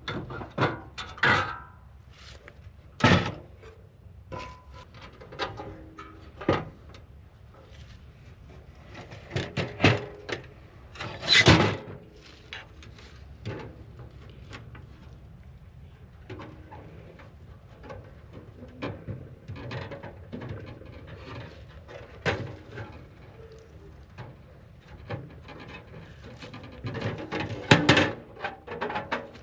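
Irregular knocks, clunks and clatter of camping gear being handled and set down, with rustling in between; the loudest knocks come about 3 seconds in, near the middle and near the end.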